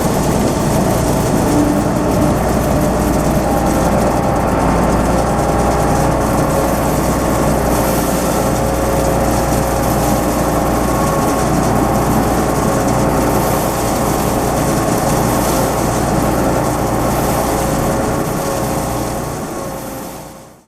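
Heavy diesel farm machinery running steadily: a deep engine rumble with a few steady whining tones, fading out near the end.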